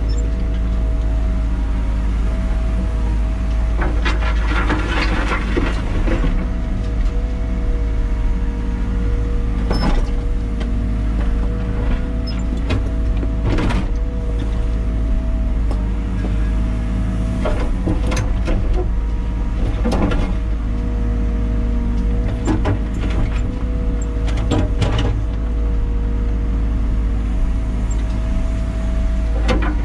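Liebherr 914 Compact wheeled excavator heard from inside its cab: a steady engine drone with a held hydraulic whine that dips slightly as the controls move. Scattered knocks and scrapes come through as the bucket digs and dumps dirt and stones onto a pile.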